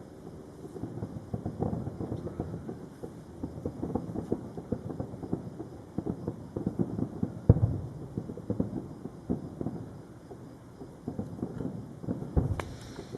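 Distant fireworks: a steady run of muffled booms and crackles, with the strongest boom about seven and a half seconds in and another near the end.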